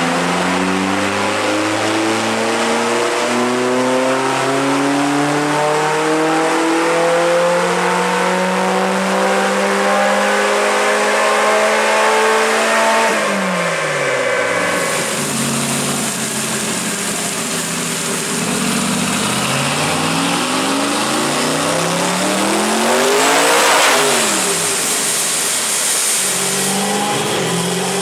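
Off-road race buggy's engine under load on a chassis dyno during a power pull: the revs climb steadily for about 13 seconds, then drop sharply as the throttle is lifted. It climbs again in a second, shorter rise that peaks loudest about 24 seconds in, then falls back.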